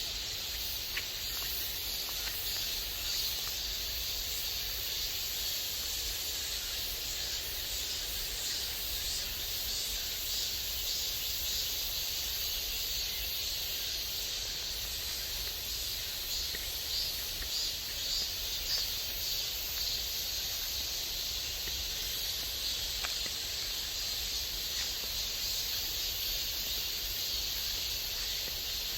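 Steady hiss of a mountain valley stream running over rocks, unbroken, with a few faint ticks.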